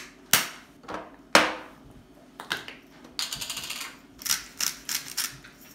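Spice containers being handled and set down on a table: sharp separate clicks and knocks, with a short run of rapid ticks about three seconds in.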